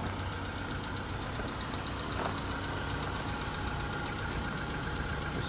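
Volkswagen Polo Sedan's 1.6-litre CFNA four-cylinder petrol engine running steadily, warming up after a cold start; the cold-start knock is fading and almost barely audible.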